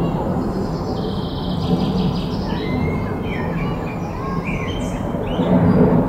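Small birds chirping and warbling in short high notes and glides over a steady low rumble.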